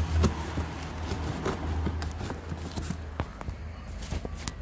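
Cardboard box being handled and opened: irregular knocks, taps and scuffs of the cardboard, over a low handling rumble that eases after the first moment.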